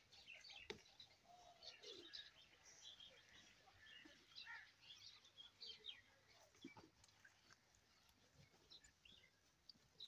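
Faint twittering of small birds: many short chirps scattered throughout, with an occasional soft knock.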